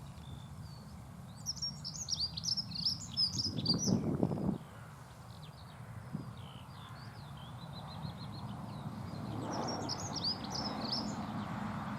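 Dunnock singing: a rapid, high warbling phrase lasting about three seconds starts a second in, and a second phrase comes near the end, with a steady low rumble underneath.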